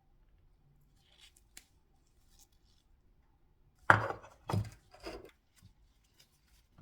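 Three short scraping knocks about half a second apart, then a fainter one, with a few faint clicks before them: parts being handled on a workbench.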